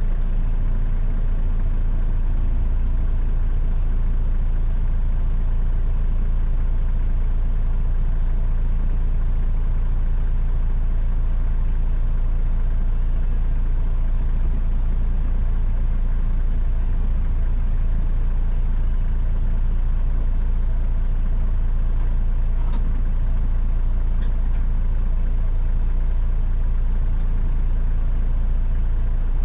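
A 4x4's engine idling steadily with the vehicle stopped.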